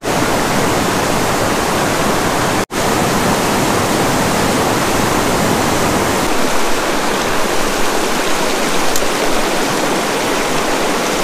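Small, low-flowing mountain river running steadily close by: an even hiss of rushing water, cut off for a split second about two and a half seconds in.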